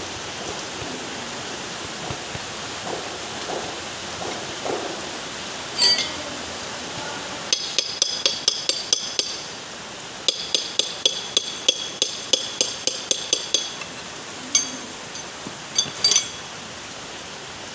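Rapid metal-on-metal tapping: a steel socket extension bar striking steel parts of a power steering rack while the oil seals are worked out and in. The clinks ring, come in two quick runs of about five a second, with a few single strikes before and after.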